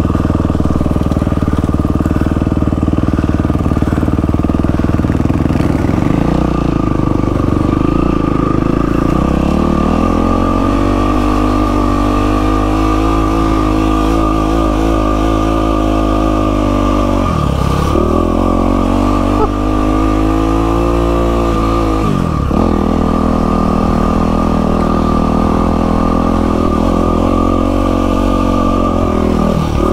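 Yamaha WR450F single-cylinder four-stroke dirt bike engine running while riding, its note rising and falling with the throttle. The note drops sharply twice, about 17 and 22 seconds in, then picks up again.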